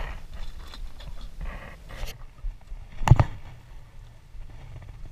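A single sharp knock about three seconds in, over a steady low rumble.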